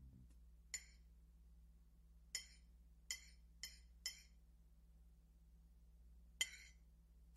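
Tableware clinking at a meal: about six short, light clinks spread through near silence over a faint low hum.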